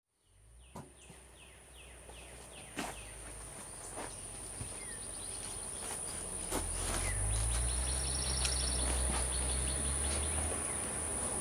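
Outdoor insect ambience fading in: a steady high-pitched insect drone, with a run of about six short falling chirps near the start and a brief pulsed buzz later. A low rumble, like wind on the microphone, grows in over the second half.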